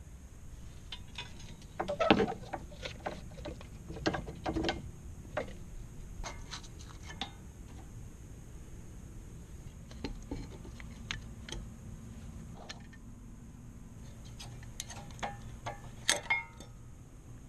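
Scattered metallic clinks and knocks of hand tools and brake parts being handled during a front brake job, in irregular clusters with the loudest a couple of seconds in and again near the end.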